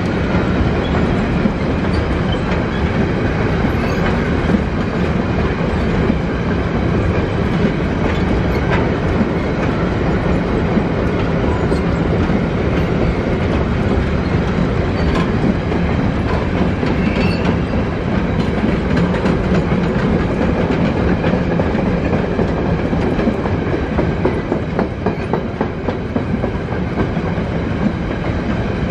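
Long freight train of covered wagons rolling past as it pulls out of the station: a steady rumble with the clickety-clack of wheelsets over rail joints. The clicks stand out more near the end as the last wagons go by.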